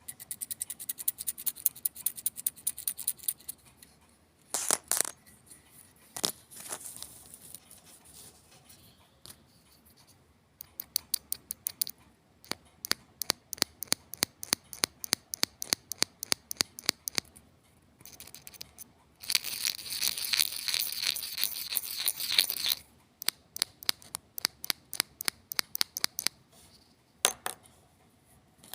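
A metal thimble and sewing needles clicking and tapping against each other: long runs of quick, light metallic clicks, with several seconds of continuous rattling about two-thirds of the way through.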